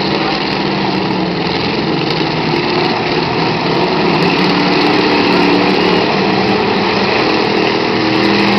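Several demolition derby cars' engines running and revving at once, a loud, steady din whose pitch drifts up and down as the cars push against each other.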